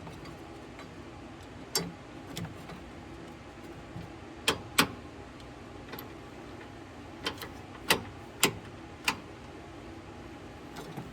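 Scattered sharp clicks and taps, about eight of them a fraction of a second to a second apart, from wiring and hand tools being handled, over a steady low hum.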